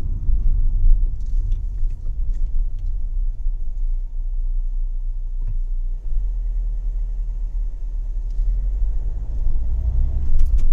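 Low, steady rumble of a car driving slowly, with engine and road noise heard from inside the cabin.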